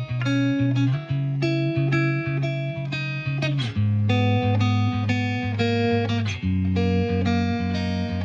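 Instrumental background music: plucked guitar notes over held low bass notes.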